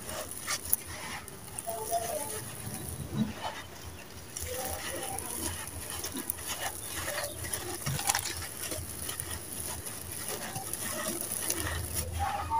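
Handfuls of dry crumbled red dirt pouring and trickling onto a pile of grit, with gritty crunching and scattered small clicks as grains and crumbs land and fingers rake through them.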